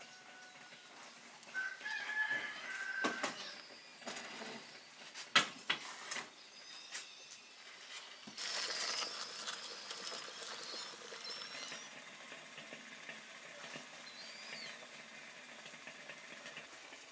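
Water poured from a kettle into a steel pot of chestnuts: a steady splashing pour of about four seconds starting about halfway through. Before it, clinks and knocks of metal cookware, the loudest a sharp knock a little after five seconds in, and a short bird call near the start.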